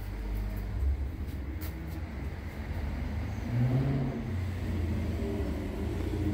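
A large vehicle engine rumbling low, its pitch rising briefly about three and a half seconds in.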